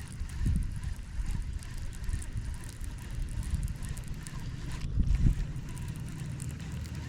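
Wind buffeting the microphone in irregular low rumbling gusts, strongest about half a second in and again around five seconds in, over a steady low hum.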